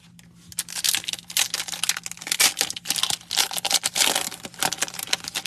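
Crinkly plastic wrapper of a trading card pack being torn open and crumpled, a dense run of crackles that starts about half a second in.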